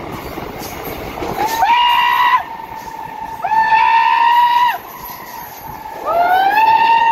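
Diesel or electric locomotive air horn sounding three blasts inside a tunnel over the rumble of the running train. Each blast slides up in pitch as it starts and sags as it stops. The last blast is the longest and is still sounding at the end.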